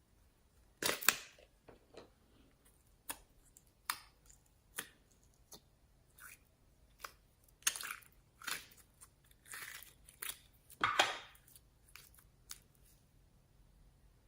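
Hands squishing and stretching slime: irregular sticky crackles, clicks and pops, with louder crunchy bursts about a second in and near eleven seconds.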